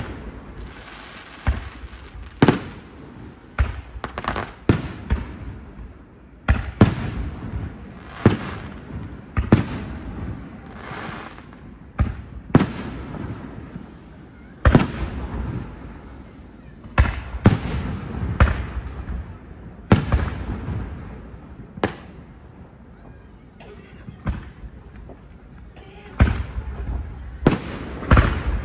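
Aerial firework shells bursting: an irregular run of sharp bangs, one every second or two and sometimes in quick pairs, each trailing off, with a lull about three quarters of the way through.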